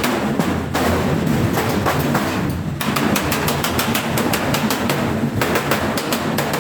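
Hammer blows on steel sheet, struck quickly in runs of about four or five a second with short breaks between runs.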